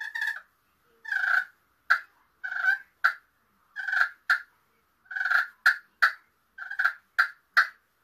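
Buck Baits slate friction pot call purring as the striker is dragged across the slate: a string of short, breaking, turkey-hen notes, roughly one or two a second, some clipped very short. A purr is the soft call a hunter makes when a gobbler is close, saying an excited hen is near and he should come in closer.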